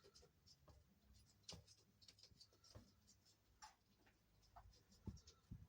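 Near silence, broken by scattered faint ticks and light taps, with a couple of soft low thumps near the end.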